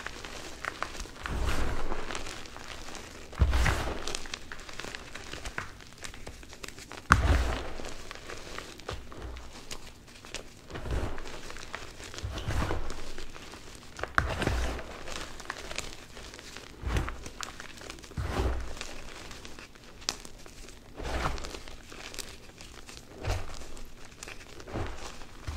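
Hands squeezing and crushing crumbled Plain Jane Cap gym chalk: repeated soft, crunchy squishes every second or two, each with a dull low thump.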